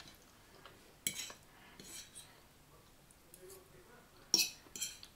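Metal fork clinking and scraping against a plate while eating: a few separate clinks, the loudest two close together near the end.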